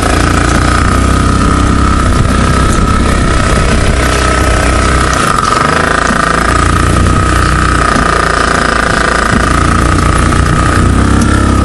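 Dune buggy engine running steadily and loudly while driving, its low drone dipping briefly about five seconds in before picking up again.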